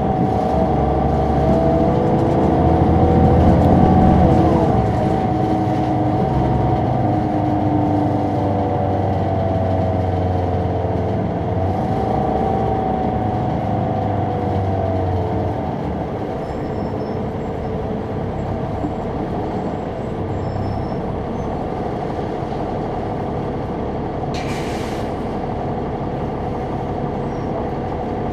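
Caterpillar C9 diesel and ZF automatic transmission of an articulated transit bus heard from on board, pulling away and climbing in pitch. The pitch drops at a gear shift about four seconds in and again around twelve seconds, then the engine settles to a steadier, quieter run. A short burst of air hiss comes near the end.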